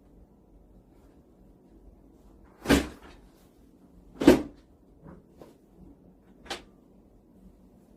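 Three separate knocks, about a second and a half to two seconds apart: the second is the loudest and the third is weaker. A few faint small knocks fall between them.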